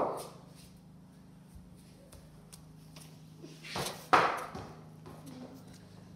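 Cricket ball impacts echoing in an empty concrete garage: one sharp knock at the very start, then two more knocks close together about four seconds in, over a faint steady low hum.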